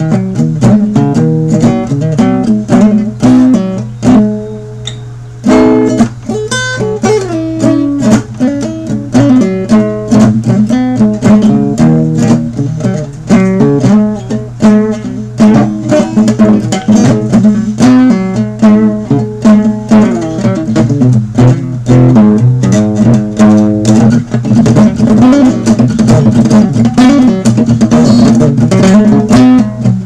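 Solo acoustic guitar, a fast run of picked and strummed notes in a blues-rock style, with a brief let-up about five seconds in.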